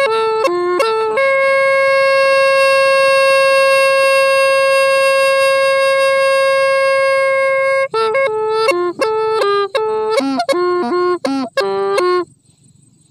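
Hmong raj le, a small bamboo pipe played vertically at the mouth, played solo with a bright, reedy, overtone-rich tone. A few quick notes open into one long held high note of about seven seconds, followed by a run of short notes, some dipping lower in pitch, before it stops near the end.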